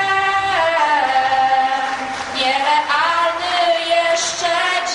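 A young woman singing long held notes into a microphone, her voice wavering slightly in pitch. She sings two long phrases, with a short break and a new phrase rising in pitch about two and a half seconds in.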